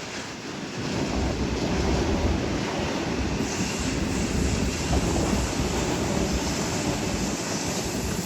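Sydney Trains Tangara electric suburban train running through the station: a rumble of wheels on rails that builds about a second in and then holds steady.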